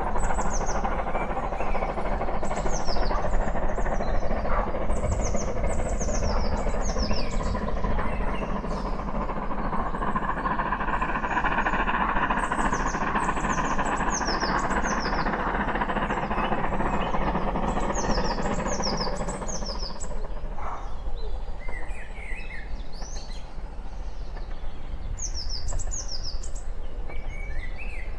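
Steam locomotive hauling a passenger train, its exhaust and running noise a steady rush that eases off about twenty seconds in. Small birds chirp repeatedly throughout in short, falling notes.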